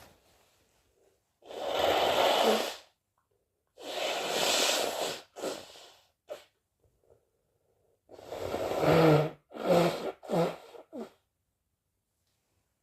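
A person sneezing several times, wet, snotty sneezes. Two long sneezes come in the first half and a quicker run of three or four near the end.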